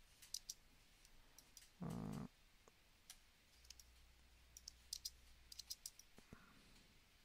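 Faint clicks of a computer mouse in a few quick clusters over near-silent room tone, with one short, louder low hum about two seconds in.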